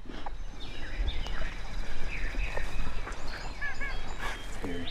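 A wild turkey gobbler gobbling once, a rapid warbling call, with other birds calling around it.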